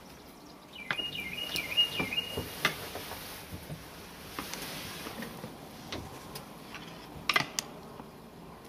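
Sharp clacks of a bull elk's antlers knocking against a water buffalo's horns, several in the first three seconds and a louder pair about seven seconds in. A bird's wavering chirping song sounds over the first clacks.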